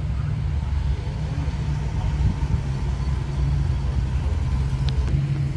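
A car engine running steadily at low revs, getting slightly louder toward the end.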